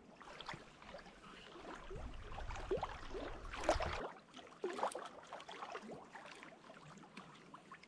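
Handling noise of a wooden canoe paddle being lashed to a pine trunk: a run of short, irregular knocks, scrapes and rustles. A low rumble under the first half stops abruptly about four seconds in.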